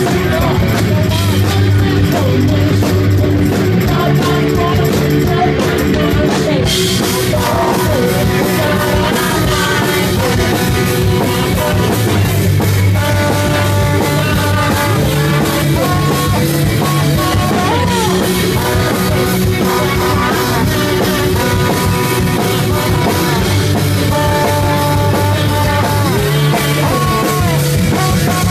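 Live rock band playing loud: drum kit, guitars, bass and a lead singer's voice, heard from within the crowd.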